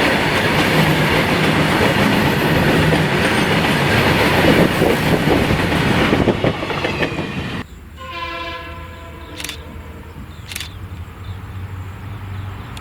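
A diesel-hauled passenger train passing close by at speed, its coaches rattling and clattering over the rail joints. The noise drops sharply about seven and a half seconds in as the train moves past and away, leaving a fainter steady pitched tone.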